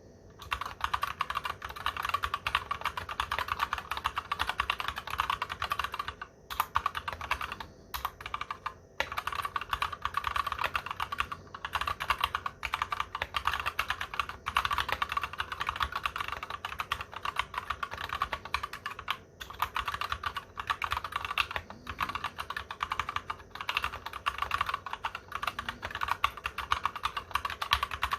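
Fast continuous typing on a Massdrop Ctrl High Profile mechanical keyboard with Gateron Clear 35 g linear switches, a dense run of key clicks with a few brief pauses.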